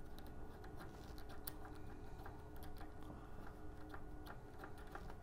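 Faint, irregular small clicks and taps of metal RF connectors, a directional coupler and its adapter, being handled and fitted together by hand, over a low steady hum.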